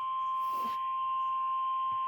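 Emergency Alert System warning tone: a single steady, unbroken pitch near 1 kHz, the alarm that announces a tornado warning.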